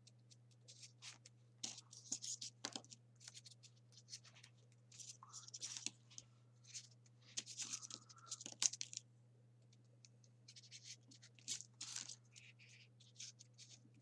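Faint rustling and scraping of folded printer-paper 3D origami pieces as they are handled and pushed into the rows of a paper model, in many short, irregular crackles over a low steady hum.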